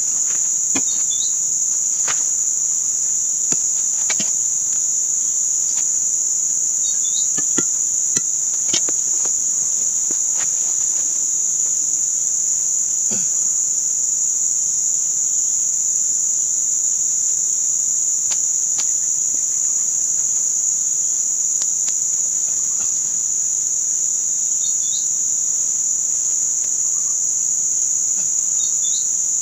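Steady, high-pitched chorus of swamp insects, with sharp knocks scattered through the first half, the loudest about 8 and 13 seconds in.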